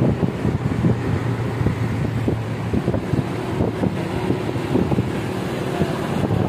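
Moving car's road and wind noise: a dense low rumble with wind gusting on the microphone and a steady engine hum underneath.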